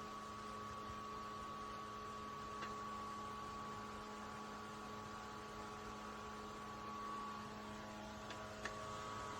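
Small USB desktop evaporative cooler fan running, a faint steady electric hum of several tones. A faint click comes near the end, and the hum's pitch shifts slightly after it.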